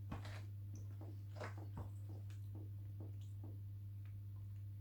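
Faint wet clicks of someone chewing a mouthful of pie, over a steady low electrical hum.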